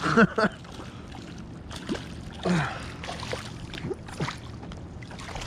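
Water splashing and sloshing against a kayak as a big pickerel is fought alongside, with a few faint knocks and a short vocal exclamation at the start.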